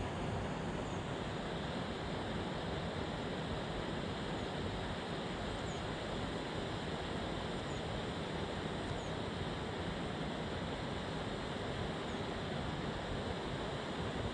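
Steady wind noise buffeting the microphone, with a few faint, short high chirps scattered through it.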